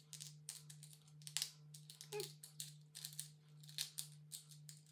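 Small pearlescent beads clicking and rattling against each other and their container as they are sorted by hand: a quick, irregular run of light clicks.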